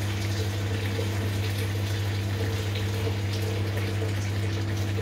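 Sauce bubbling at a simmer in a wok, a soft fizzing crackle, over a steady low electrical hum.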